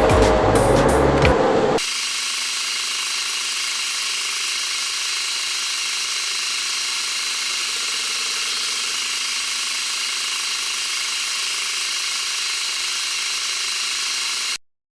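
Metal lathe running steadily, a high-pitched, even hiss-like machine noise with a few faint steady tones that cuts off abruptly near the end.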